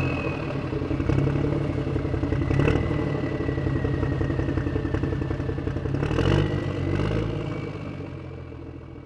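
Motor vehicle engine running, with a faint high whine and a few clattering knocks. It revs up about six seconds in, then fades steadily over the last two seconds as the vehicle drives away.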